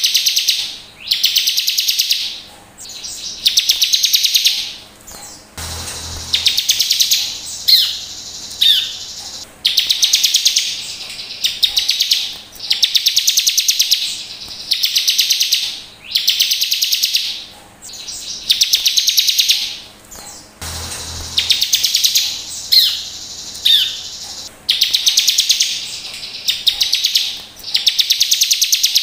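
Bar-winged prinia (ciblek) song: loud, fast, buzzy trilled phrases about a second long, repeated roughly every two seconds, with a few sharp sliding notes among them. The same run of phrases comes round again after about 15 seconds.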